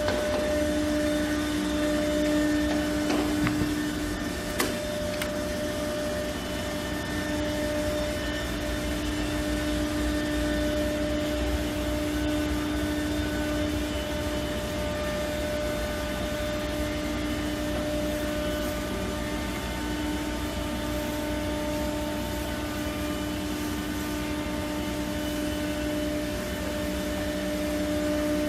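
Steady drone of running machinery, with a constant hum and a lower tone that fades out and returns every few seconds; a single sharp tap about four and a half seconds in.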